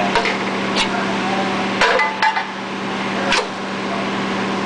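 Elbow machine's motor humming steadily while sheet metal clanks and clinks against the machine several times as a duct elbow is bent and crimped.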